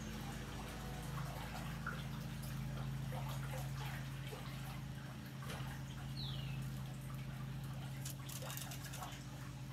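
Swimming-pool water trickling and dripping over a steady low hum, with a short falling chirp about six seconds in.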